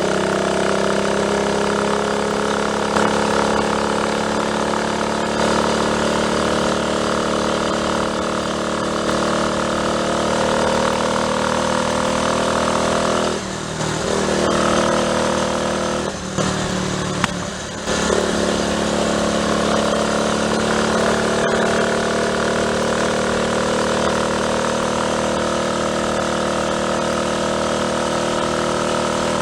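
Triumph Tiger Cub's single-cylinder four-stroke engine running steadily. Its pitch shifts slightly, and its level drops briefly twice about halfway through.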